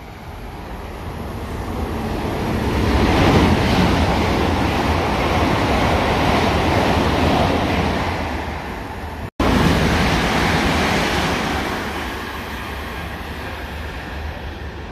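A train passing close through the station at speed: a loud rushing noise of wheels and air that builds and then fades. It cuts off abruptly about nine seconds in, then swells again briefly and dies away.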